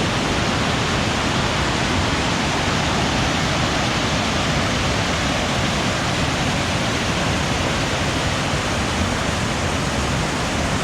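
Loud, steady rush of whitewater pouring over a waterfall on a creek running high and swollen with storm rain.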